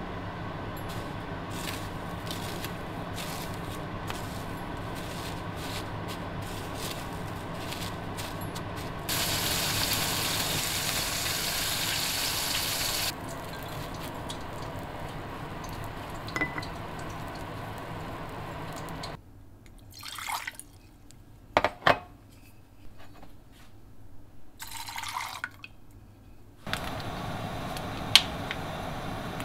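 Cooking sounds of breaded prawns: soft clicks and handling over a steady hum, then about nine seconds in a loud hiss of deep-frying oil lasting about four seconds. Later come sharp taps on a wire rack, and near the end a steady hiss from a small saucepan heating on the stove.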